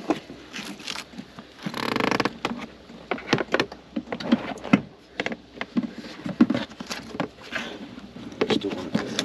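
Bungee cords being stretched and hooked around a plastic drawer unit: a run of irregular clicks and knocks from the hooks and plastic, with a brief rustle about two seconds in.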